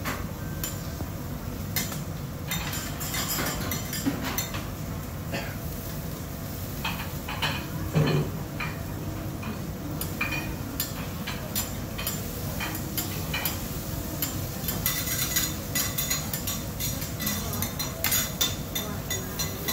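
Metal cooking utensils and dishes clinking and knocking, with many light clinks and one louder knock about eight seconds in, over a steady low hum.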